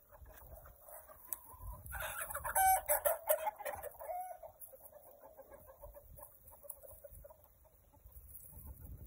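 Chickens clucking, with one loud rooster crow starting about two seconds in and lasting about two seconds.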